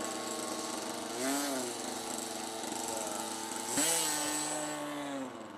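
A radio-controlled model airplane's engine running on the ground, with a short rise and fall in pitch about a second in and a quick throttle-up near the four-second mark that holds for a moment before easing off near the end. A steady high whine runs along with it.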